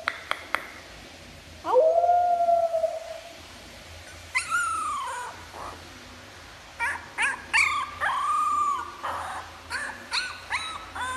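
Young puppy howling: a long howl about two seconds in, then a falling cry, then a string of short yips and whimpering howls that come quicker near the end. A few soft clicks come first.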